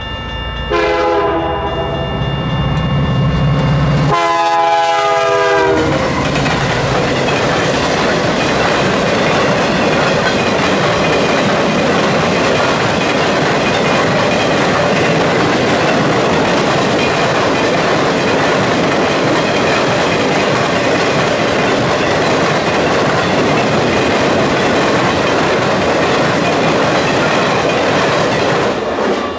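Nathan K3L horn on a CN SD75I locomotive sounds one long blast and then a shorter one, the chord dropping slightly in pitch on the second as the locomotive passes. Then a string of empty centre-beam flatcars rolls steadily through the crossing with wheel and rail noise and clickety-clack. The crossing's Safetran Type 1 electronic bell rings at the start, before the horn.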